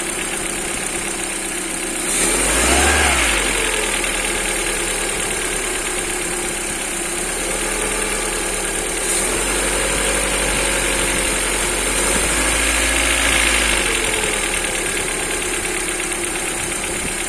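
Lada Priora's four-cylinder petrol engine idling, revved briefly about two seconds in, then held at raised revs for several seconds before dropping back to idle. The revving brings out an extraneous noise that the owner hears only on throttle while the engine is still cold.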